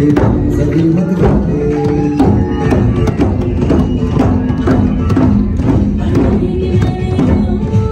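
An ensemble of djembe hand drums played with open palms in a steady rhythm, over music with a sustained, changing melody.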